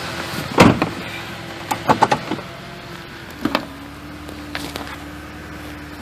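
1998 Ford Ranger's 4.0L V6 idling while it is put into gear against the brake, a load test for misfire, with its steady note settling to a new pitch about three and a half seconds in. Several knocks and clunks from getting into the cab and shifting come over it, the loudest about half a second in.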